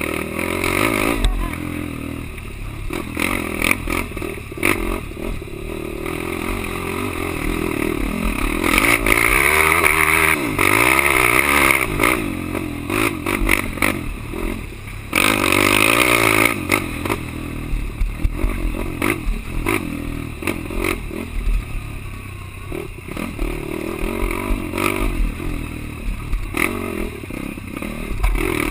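Quad (ATV) engine revving up and down under load, its pitch rising and falling again and again, with frequent knocks and rattles.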